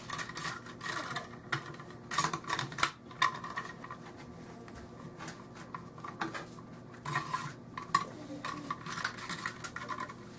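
Metal clinking and scraping from a cleaning rod being worked back and forth through the bore of a stripped Norinco SKS rifle, in several short bursts with pauses between.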